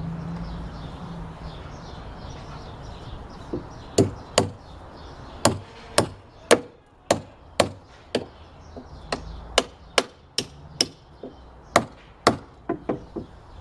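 Hammer blows on wood during a staircase repair: a run of about twenty sharp strikes, roughly two a second, starting a few seconds in.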